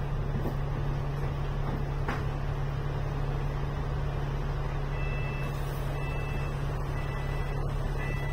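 Double-decker bus's diesel engine idling at a stop, a steady low hum. About five seconds in, an electronic two-tone beep starts repeating about once a second.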